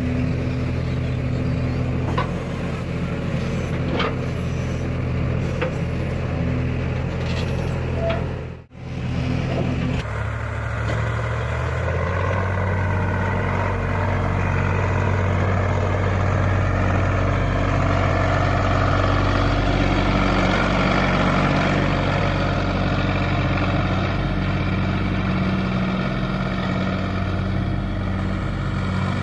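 Heavy vehicle engine running steadily at a constant speed. About nine seconds in the sound cuts out for a moment and a similar steady engine hum takes over.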